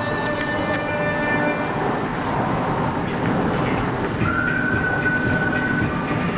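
Road and wind noise of a car driving on the highway, a steady rushing sound. About four seconds in, a single steady high tone comes in and holds.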